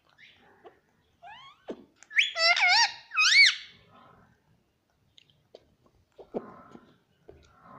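Ringneck parrot giving a short run of shrill, squeaky calls, each dipping and then rising in pitch, about two seconds in, after a couple of quick rising chirps.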